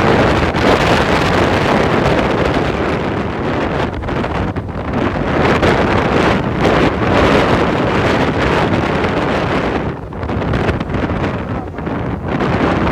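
Loud wind buffeting the microphone, rising and falling in gusts, with a brief drop about ten seconds in.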